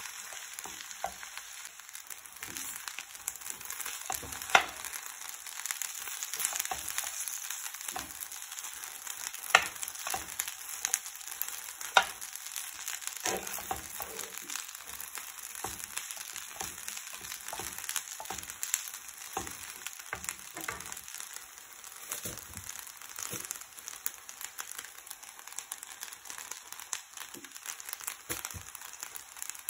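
Pasta, potato and tuna sizzling in an oiled frying pan while being stirred with a metal spoon, a steady hiss with scattered clicks of the spoon against the pan, three of them sharp and loud in the first half.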